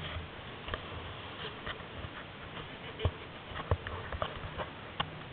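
Irregular light knocks and clicks from a handheld camera being handled and moved about, over a faint hiss.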